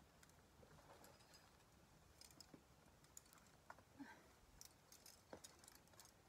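Near silence with faint, scattered light clicks.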